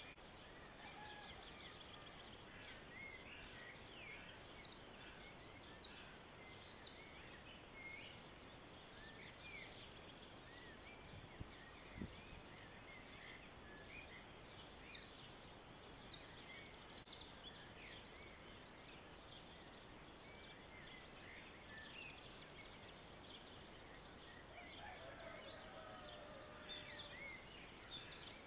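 Faint birdsong: many short chirps from several small birds scattered throughout, over a steady hiss. A single low thump comes about twelve seconds in, and a longer, lower gliding call near the end.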